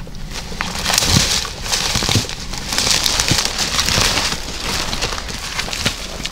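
Footsteps crunching through dry brush and undergrowth, with branches and leaves rustling against clothing and a few sharp twig snaps.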